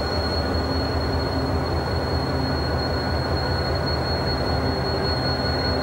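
Diesel locomotive engines idling: a steady low rumble with a thin, steady high-pitched whine above it.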